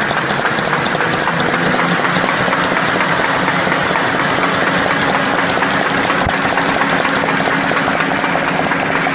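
Envelope gluing machine running at speed: a steady, dense, rapid clatter of its rollers and feed mechanism over a low hum.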